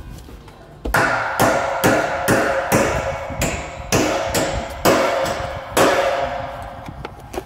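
Hammer blows, about a dozen at roughly two a second, each with a short ringing tone. The blows start about a second in and stop about six seconds in.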